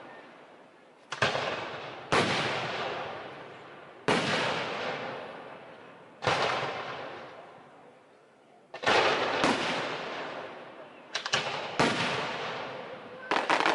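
Aerial firework shells bursting overhead: about eight sharp booms, spaced one to two seconds apart. Each is followed by a long echo that fades over a couple of seconds.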